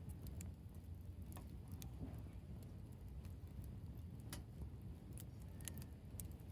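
Campfire crackling quietly: scattered, irregular sharp pops and ticks over a low steady rumble.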